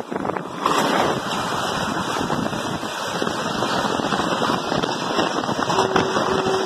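Two passenger trains passing each other at speed: a loud rush of wind and the rapid clatter of the oncoming train's coaches over the rails, heard from the open door of the moving train. The noise jumps up suddenly under a second in as the oncoming electric locomotive draws level, then stays loud as its coaches stream past; a faint steady tone comes in near the end.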